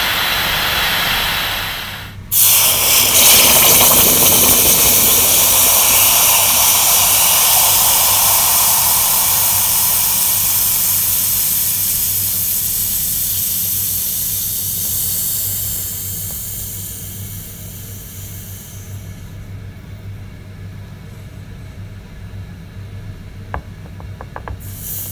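Gas torch flame hissing, cut off about two seconds in; then a red-hot rusty iron railway spike plunged into cold water, a loud steam hiss and sizzle that starts suddenly and fades slowly over the next fifteen seconds as the metal cools.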